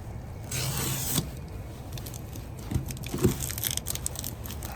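A large cardboard shipping box being handled: a short scraping rustle of cardboard, then a run of clicks and a few dull knocks as it is moved and turned, over a low steady hum.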